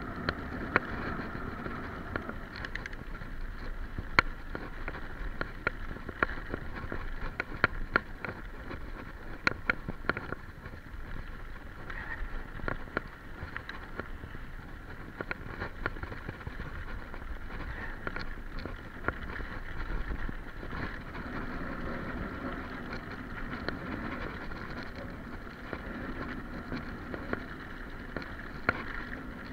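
Mountain bike riding downhill on a rough grassy dirt trail: tyres rolling over the ground with frequent sharp clicks and knocks as the bike rattles over bumps, under a steady rush of wind on the microphone.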